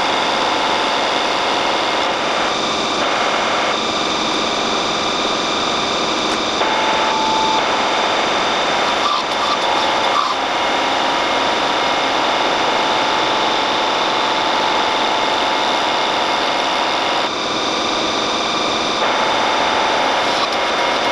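Metal lathe running and cutting steel, the tool shearing off curling chips in a steady machining noise with a faint whine that comes and goes.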